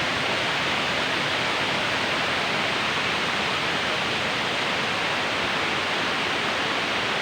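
Waterfall: falling water rushing in a steady, even roar of noise.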